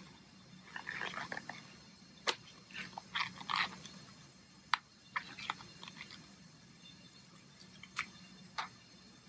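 Gloved hands stretching a rubber dam sheet over the wings of a metal dental dam clamp: quiet, scattered rustling and stretching sounds of the rubber, with a few sharp clicks, one a little over two seconds in and two more near the end.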